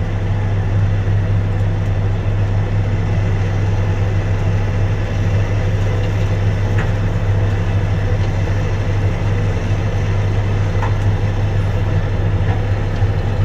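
Heavy diesel truck engine idling, a steady low drone heard from inside the cab.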